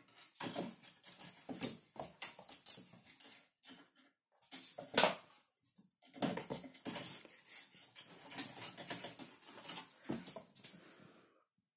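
A kitten scrabbling and pawing at a wooden folding tray table: irregular scratches, scrapes and light knocks of claws and paws against the table legs and floor, with one louder knock about five seconds in, stopping just before the end.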